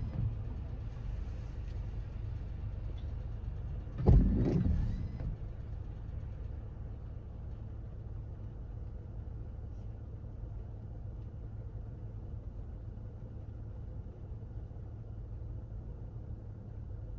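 Car driving in the rain: a steady low rumble of road noise, with a sudden loud burst about four seconds in that fades over about a second.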